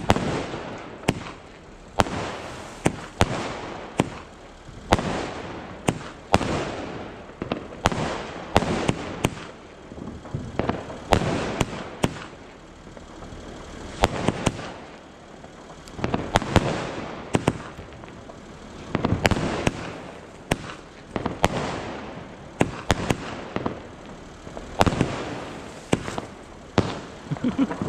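Aerial fireworks bursting overhead in a rapid series of sharp bangs, roughly one a second, some coming in quick clusters of pops.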